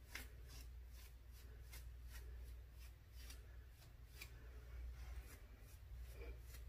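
Afro pick raked through short, coily natural hair: faint, scratchy strokes, about two to three a second.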